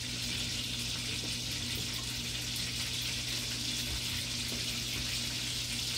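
Margarine sizzling in a frying pan on a gas stove: a steady, even hiss, with a low steady hum underneath.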